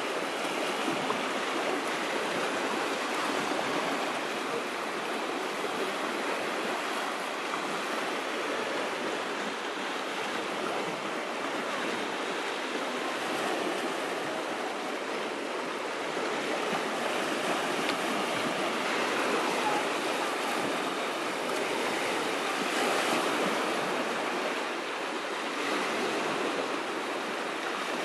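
Small sea waves washing in, a steady surf sound that swells slightly now and then.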